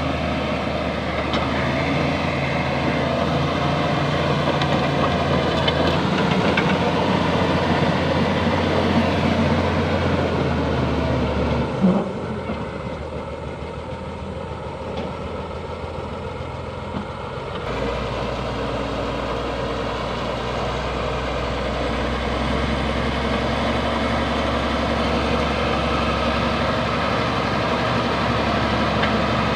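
Bulldozer's diesel engine running steadily under work, with a single sharp knock about twelve seconds in. It then runs quieter for about six seconds before coming back up to full strength.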